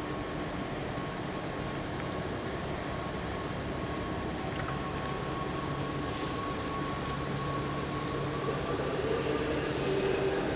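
Electric passenger train at a station platform, with a steady electric whine over a low hum and rumble that grows slightly louder near the end.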